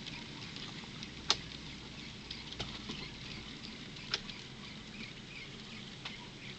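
N scale freight cars rolling by on model track: a steady light rattle of small wheels with scattered ticks, and two sharper clicks, about a second in and about four seconds in.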